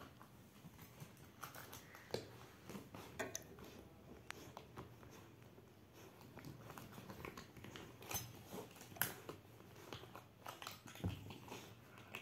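Golden retriever puppy chewing a hard plastic toy: faint, irregular clicks and gnawing sounds, a few sharper clicks here and there.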